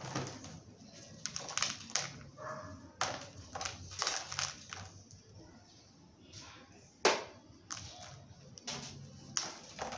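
Small decorative pebbles being scraped and picked off the top of a potted desert rose's soil and tossed into a plastic basin: irregular light clicks and rattles, with one sharper clack about seven seconds in.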